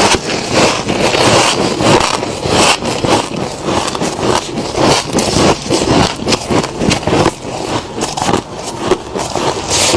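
Close-up crunching of freezer frost: a dense, irregular run of loud, crisp crunches with no pause.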